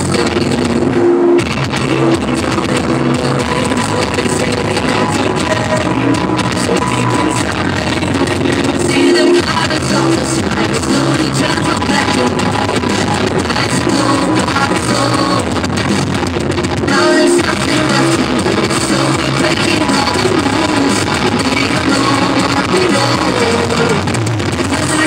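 A song with singing and guitar plays loudly and without letup, with a few brief breaks.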